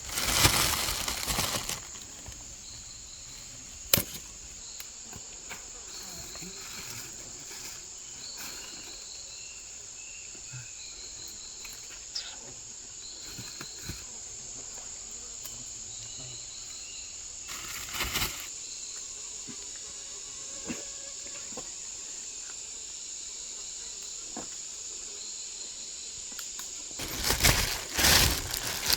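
Insects keep up a steady, high-pitched drone, with short chirps repeated every second or two. Loud rustling noises break in during the first two seconds, once in the middle, and again near the end.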